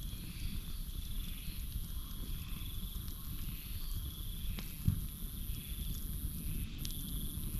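Campfire burning with a low rumble and a few sharp crackles, one louder pop about five seconds in. Behind it, crickets and frogs call: a steady high trill and a chirping that pulses about twice a second.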